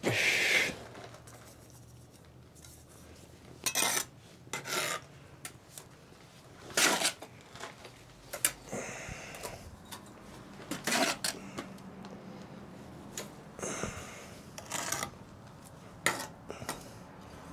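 Steel mason's trowel scraping and working wet mortar against brick, in short, irregular strokes a second or more apart.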